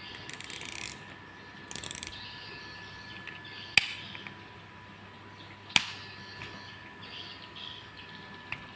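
Baitcasting reel being reassembled by hand: two short bursts of rapid ratcheting clicks, then two sharp single clicks a couple of seconds apart as parts snap into place.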